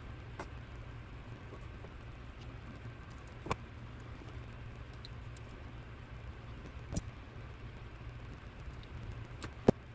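Light clicks and taps of small metal carburetor parts being handled and fitted, with a screwdriver turning in the body; four or so sharp clicks, the loudest near the end, over a steady low hum.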